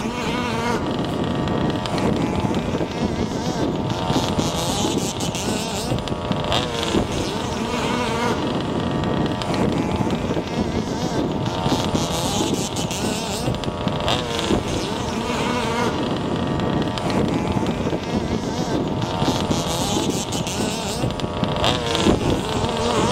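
Small engines buzzing and revving, their pitch rising and falling again and again.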